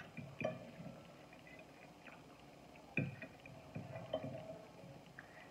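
Eating sounds: a fork clicking and scraping on a glass plate and chewing, with a few sharp clicks, the loudest about three seconds in.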